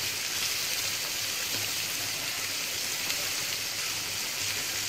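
Chopped onions, garlic, turmeric and green chillies sizzling steadily in hot oil in a frying pan while they are stirred with a spatula.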